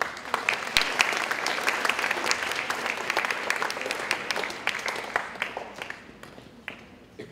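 Audience applauding, many hands clapping at once. It starts suddenly, holds for about five seconds, then dies away to a few scattered claps near the end.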